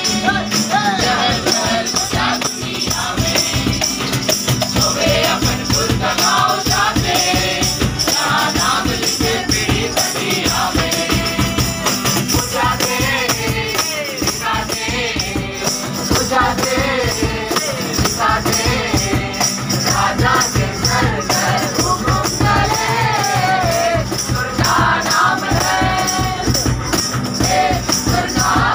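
A mixed group of young men and women singing a Christmas carol together, with a hand tambourine jingling in rhythm.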